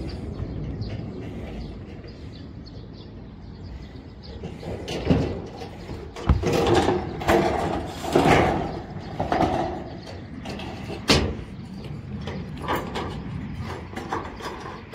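Irregular knocks, clanks and scraping of metal from work on a steel-framed metal roof. The first few seconds are fairly even and quiet, then come a few sharp bangs and a busier stretch of clattering in the middle.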